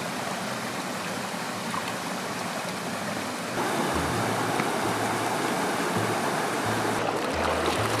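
Mountain valley stream flowing, a steady rush of water. About halfway through, background music with a low bass line comes in and the sound grows louder.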